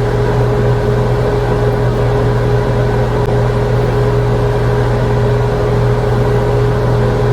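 Hot-air blow dryer brush running steadily: an even motor whir and airflow with a constant hum.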